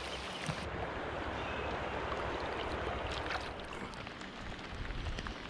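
River water rushing and splashing along the side of a drifting boat, a steady hiss that swells about halfway through and eases near the end, with a few light ticks.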